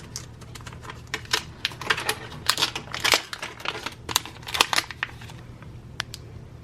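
Product packaging being handled and opened by hand: a quick run of clicks and crinkles that thins to a few single clicks after about five seconds.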